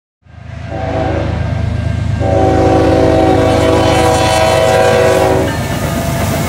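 Diesel freight locomotive air horn sounding a short blast, then a long blast of about three seconds, the closing short-long of a grade-crossing signal. Under it the locomotives' diesel engines and wheels rumble steadily as the train passes close by.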